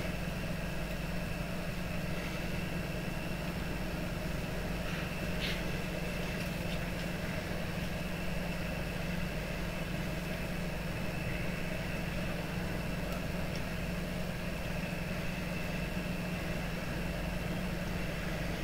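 Steady low mechanical hum, like an engine running, with a few faint clicks about five seconds in.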